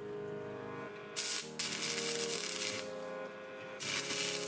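Electric arc welding on steel crackling and hissing in three bursts: a short one about a second in, a longer one just after, and another near the end. Background music with sustained notes plays throughout.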